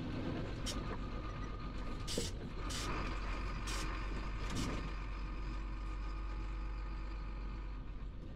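Heavy Chenglong truck's diesel engine running steadily, heard from inside the cab with road noise. About five short hisses come in the first five seconds.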